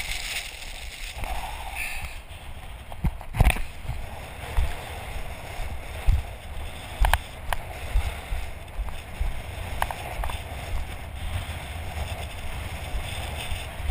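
Strong wind buffeting the camera's microphone: a steady low rumble with scattered sharp knocks, the sharpest a few seconds in.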